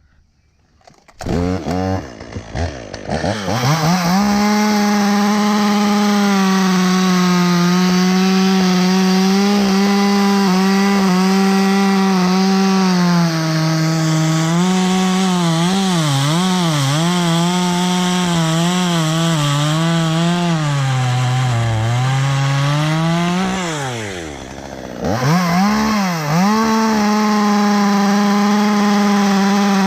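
Chainsaw revving up and running at full throttle through a rotten ash trunk, its pitch wavering and dipping as the chain loads in the wood. Near the end it drops off for about a second, then revs up again.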